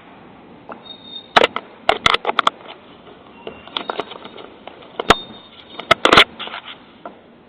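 Irregular sharp clicks and knocks in small clusters over a low steady hiss, the loudest cluster about six seconds in.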